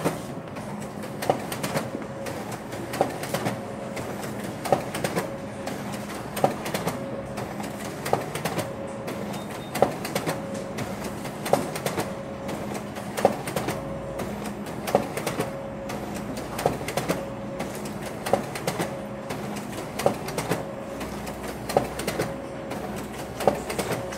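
Office photocopier running a multi-copy job: a steady hum with a sharp clack repeating about every 1.7 seconds, and lighter clicks between.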